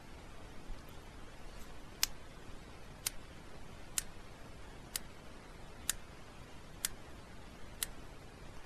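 Metronome clicking a steady pulse, about one sharp, faint click a second, seven clicks starting about two seconds in.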